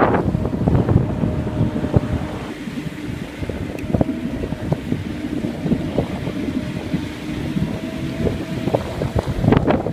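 Wind buffeting the microphone on a boat on open water, with scattered small knocks and a faint steady hum underneath.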